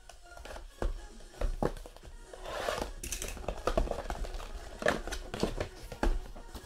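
Plastic shrink wrap on a cardboard trading-card box being slit with a cutter and pulled off, crinkling and tearing, with knocks from handling the box.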